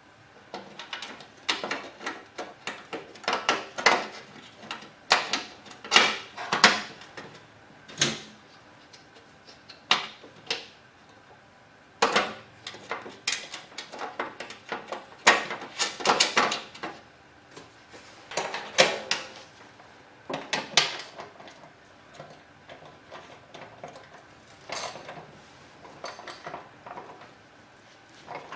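Metal parts and hand tools clanking and rattling in irregular knocks and clatters, the sound of a snowblower's auger assembly being worked on and fitted back together.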